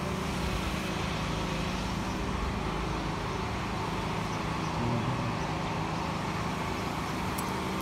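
Steady city background noise: a constant low hum with distant road traffic, unchanging throughout.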